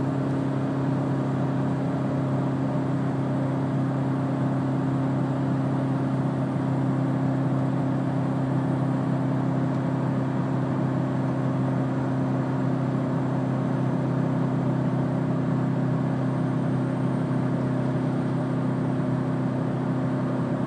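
A GMC Sierra 1500's 5.3-litre V8 running hard at a steady 4,000 rpm, pulling a 7,500-lb trailer at highway speed. It is heard from inside the cab as an even, unchanging drone mixed with road noise.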